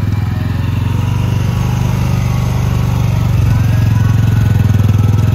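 Engine of a Polaris Ranger utility vehicle running steadily as it drives across the grass, getting a little louder about three seconds in.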